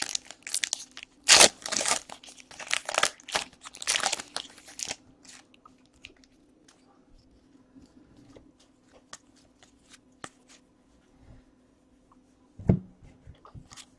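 Foil wrapper of a trading-card pack crinkling and tearing open for about five seconds, then faint clicks of cards being handled, with a soft knock near the end.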